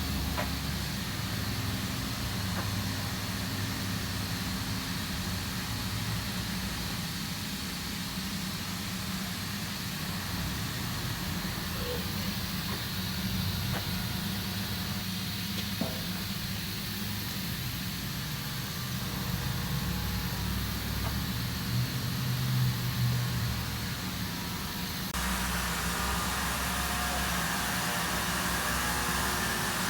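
Steady low hum of running sawmill machinery with a few faint knocks; the sound changes abruptly about 25 seconds in.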